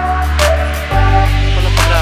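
Background music: deep held bass notes under a melody, with two drum hits about a second and a half apart.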